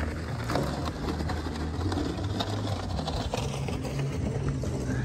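A motor running steadily with a low hum, with scattered light clicks and scrapes over it.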